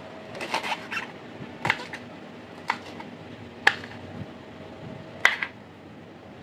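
Kitchen knife chopping green chillies on a cutting board: a series of sharp, irregularly spaced knocks as the blade strikes the board, the loudest about halfway through and again near the end.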